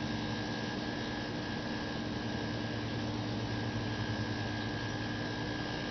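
Steady hum and hiss with a few constant tones, unchanging throughout: room tone with electrical hum and no distinct event.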